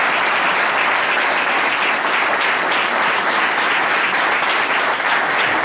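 Steady applause from a group of people clapping their hands.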